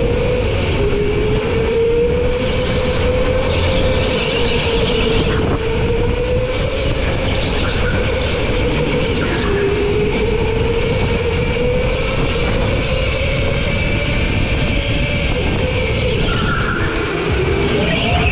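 Go-kart at speed on a lap: the motor's whine rises and falls in pitch as it slows into turns and speeds up out of them, over a steady rush of wind on the microphone.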